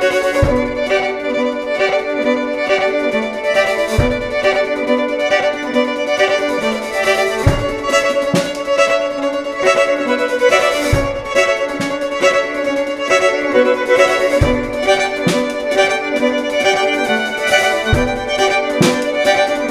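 Bowed violin and drum kit playing a song together. The violin holds steady, sustained notes, and a strong low drum beat falls about every three and a half seconds, with lighter cymbal and stick strokes between.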